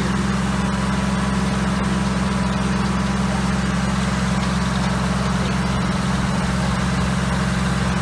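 Antique tractor engine running at a steady speed, powering a Foley Belsaw M14 circular sawmill whose blade is spinning free, not yet in the log.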